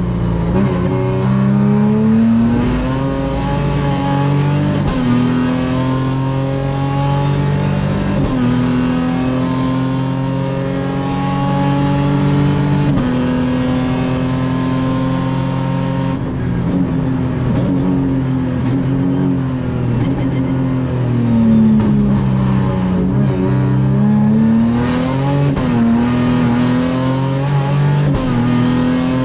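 V6 race car engine heard from inside the cockpit, at full throttle and climbing in pitch through the gears, with steps at each shift. About two-thirds of the way through, the pitch falls as the car slows, then climbs again under acceleration.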